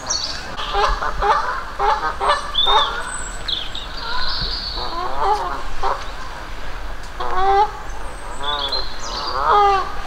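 Geese honking over and over, a series of harsh calls through the whole stretch, with small birds chirping higher up in the background.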